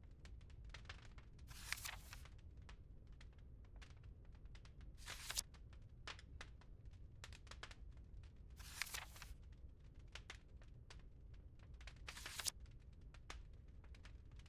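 Faint crackling ambience: scattered small clicks over a low steady rumble, with a brief louder rustle about every three and a half seconds.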